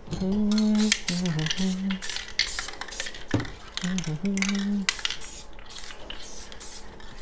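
A person humming a few held notes, twice, over repeated clicking and rattling from a spray paint can being shaken and handled while paint is added to a hydro-dip tank.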